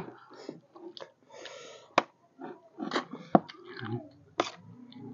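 Close-up eating sounds: chewing and sucking at cooked buffalo leg bone and marrow, with a few sharp clicks of utensils against the steel plates.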